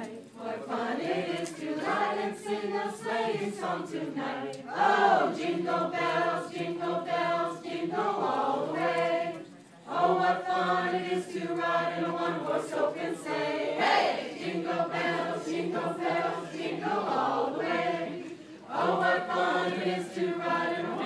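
A mixed group of men and women carollers singing a Christmas carol together in held, phrased lines, with brief breaks between phrases.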